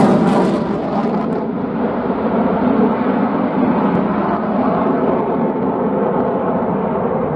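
Eurofighter Typhoon jet fighter's twin EJ200 turbofans running in afterburner, a loud, steady rumble as the jet pulls away; the hissing top of the sound fades out about a second and a half in.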